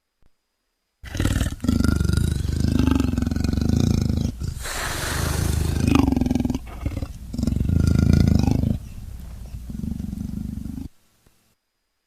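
Leopard growling in a run of long, loud calls with short breaks, lasting about ten seconds before stopping abruptly.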